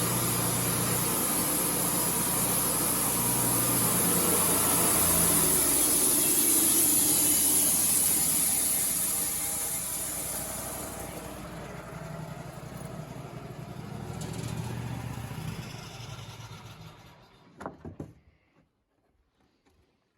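Wood-Mizer LT35 portable band sawmill running steadily with a loud high hiss. The hiss stops about halfway through, and the engine sound then dies away over several seconds. A few sharp clicks near the end are followed by near silence.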